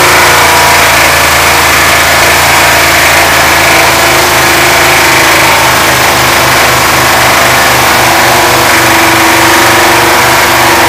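An 85 Dodge 250 van's V8 running loudly and steadily while it overheats and is being blown up, with a strong hiss over the engine note. A regular pulsing beat, about two to three a second, comes into the engine sound about four seconds in.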